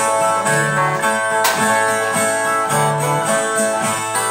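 Two Brazilian violas played together in the strummed instrumental interlude of a cantoria de viola, repeating a short phrase about once a second between sung stanzas.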